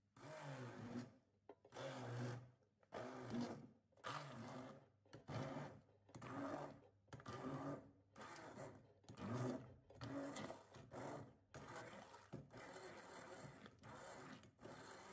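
Immersion (stick) blender run in short pulses about one a second in a glass bowl of banana, eggs, sugar and butter. It runs more steadily near the end as the mixture becomes a smooth batter.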